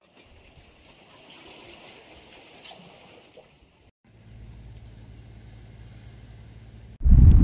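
Faint seaside ambience: a low even hiss of wind and water, broken by a short drop about four seconds in, then joined by a steady low hum.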